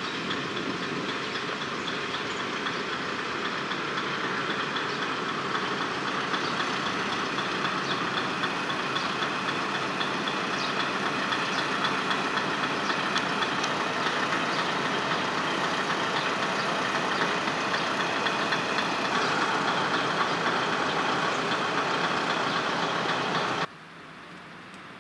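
A 1960s diesel railcar's engine idling steadily, with a faint high steady whine over it. About a second before the end it cuts off abruptly, leaving quieter wind noise.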